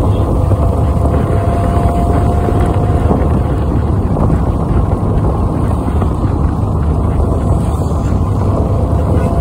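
Wind rushing over the phone's microphone from a moving vehicle, over the steady low rumble of the vehicle's engine and tyres on the road. It is loud and continuous, with no breaks.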